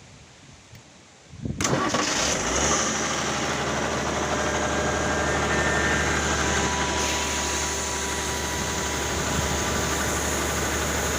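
An air compressor's engine starts about a second and a half in and then runs steadily at a constant speed.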